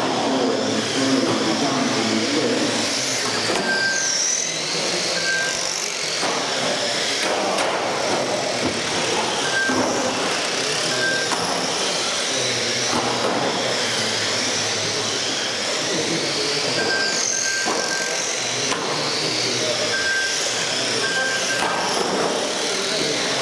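Several electric RC touring cars racing on carpet, their motors whining and rising and falling in pitch as they accelerate and brake. Short high beeps sound several times, in small groups.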